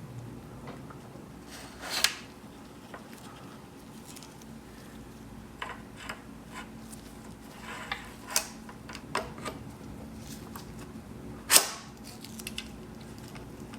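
Scattered light clicks and taps of bicycle parts and tools being handled during assembly, with two sharper knocks about two seconds in and near the end, over a faint steady hum.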